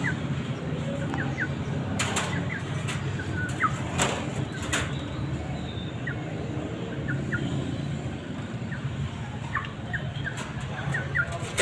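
Caged birds: brief high chirps scattered through, with a few sharp knocks about two, four and five seconds in, over a steady low hum.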